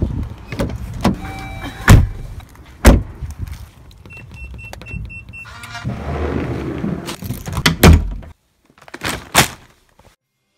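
Car-door thumps and handling knocks with engine-cabin rumble, and a run of four short, even electronic beeps about halfway through.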